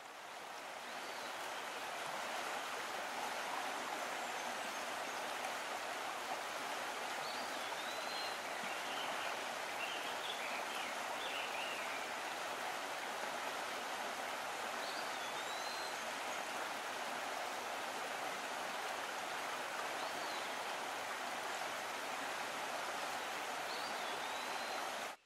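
Steady rushing of a flowing creek, with a bird's short rising-then-falling whistle several times and a brief run of chirps about ten seconds in. The water sound fades in at the start and cuts off abruptly at the end.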